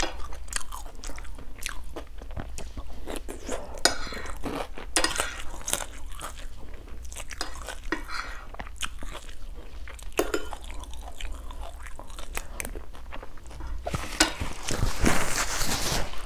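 Close-miked chewing and mouth sounds of eating fried rice-flour cake (bột chiên), with forks clicking against the ceramic plate. Near the end, a paper napkin rustles as the mouth is wiped.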